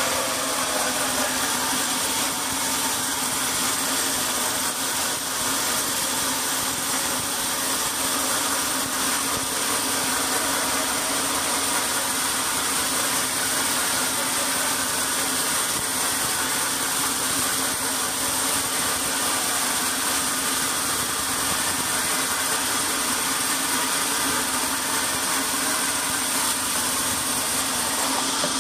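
Large horizontal band sawmill running and cutting lengthwise through a big log: a steady machine noise with a constant high-pitched tone.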